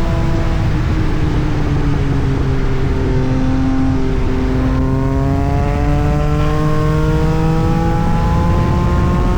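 Yamaha MT-09 SP three-cylinder engine through an Austin Racing aftermarket exhaust, running steadily. Its pitch sinks slowly for about four seconds, then climbs steadily through the rest.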